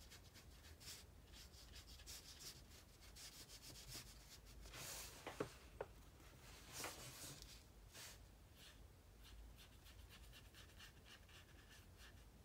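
Faint rubbing and scrubbing of a watercolor brush, worked in the paint pans of a watercolor set and stroked across watercolor paper, with a couple of light ticks midway.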